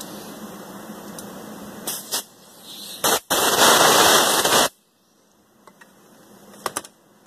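Compressed-air blowgun blowing out freshly tapped repair-pin holes in a cast-iron small-block Chevy 400 cylinder head: a few short bursts of air, then one long, loud blast of over a second that cuts off suddenly.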